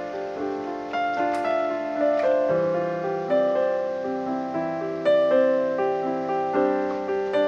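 Background piano music: a slow melody of single notes over held chords, with a new note about every half second.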